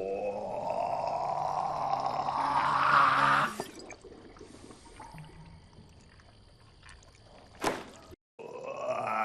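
A man's long belch, rising steadily in pitch for about three and a half seconds before stopping abruptly. Later comes a single sharp click, a moment of dead silence, and another rising belch starting just before the end.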